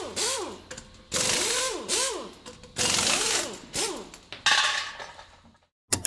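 A power tool run in about six short bursts, each burst rising and then falling in pitch, with a rattling mechanical noise. A short sharp sound comes just before the end.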